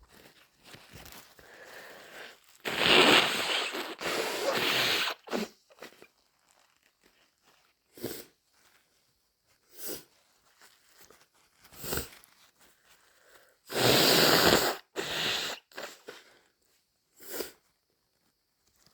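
A person with a head cold sneezing and blowing a congested, snotty nose: two long, loud bursts, one a few seconds in and one about two-thirds through, with short sniffs between them.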